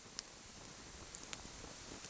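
Wood campfire crackling: a few sharp pops over a soft, steady hiss.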